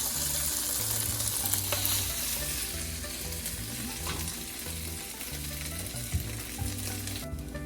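Chicken pieces sizzling in oil in a frying pan, a steady hiss that fades gradually and cuts off sharply near the end.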